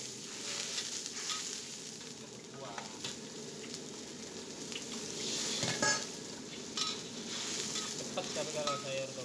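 Metal spatula stirring and scraping in a wok while sliced meatballs sizzle in a little broth over high heat. The hiss is steady, with scattered clinks of the spatula against the wok and a sharper clank about six seconds in.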